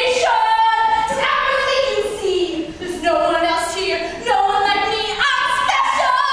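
A young woman singing solo, holding long notes that slide in pitch, with a short break near the end.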